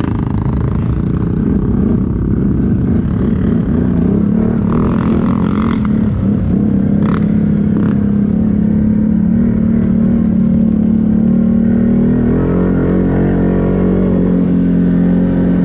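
ATV engine running steadily while riding, with a slight change in pitch about twelve seconds in. Two short knocks come about seven and eight seconds in.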